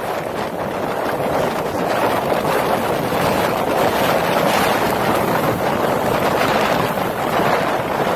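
Hurricane wind buffeting the microphone over waves breaking on a rocky shoreline. It is a dense, steady rush of noise that grows louder through the first couple of seconds, then holds.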